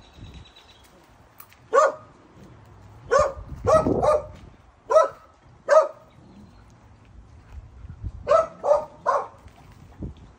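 Dog barking, about nine short barks: six spaced out over the first half, then three quick barks in a row near the end.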